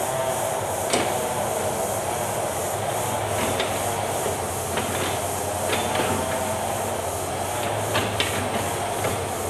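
Hitachi Zaxis hydraulic excavator working: the diesel engine runs steadily under load while a hydraulic whine wavers in pitch as the cab swings. Sharp metallic knocks come about six times.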